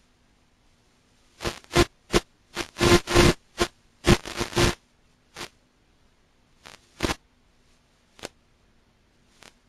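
Bursts of static hiss from an analog FPV video link as the signal breaks up. The bursts come thick and fast for a few seconds after the first second, then a few isolated crackles follow, over a faint steady hum.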